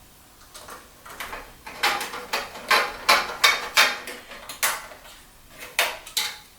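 A run of about a dozen sharp clicks and clacks of hard objects being handled, irregular and a few a second, starting about half a second in and stopping shortly before the end.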